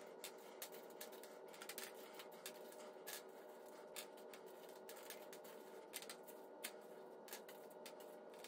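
Faint, irregular light clicks and taps of small hard candies being picked up and dropped into plastic weighing dishes, over a faint steady hum.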